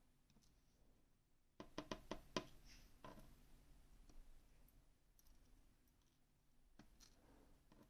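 Faint clicks of small metal lock parts being handled: a quick run of about five clicks about two seconds in, then a few scattered light ticks.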